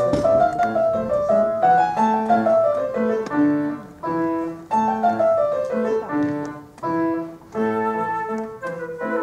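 Grand piano playing a classical accompaniment alone: quick runs of notes rising and falling, the introduction before the solo flute comes in.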